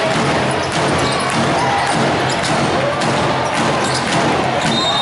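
Irregular sharp thuds and knocks over a dense background of many voices.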